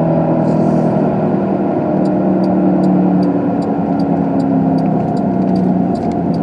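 Car engine running steadily while driving, its hum shifting slightly in pitch. A light ticking about twice a second runs over it from about two seconds in.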